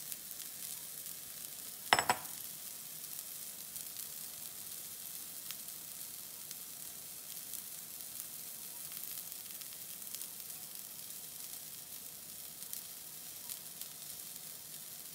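Sliced carrots and broccoli sizzling steadily in a hot frying pan. A single sharp clink comes about two seconds in.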